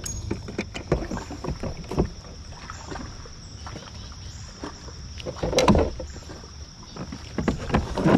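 A largemouth bass being netted and lifted aboard a plastic pedal fishing kayak: water splashing and the landing net and gear knocking against the hull, with a louder burst of noise about five and a half seconds in.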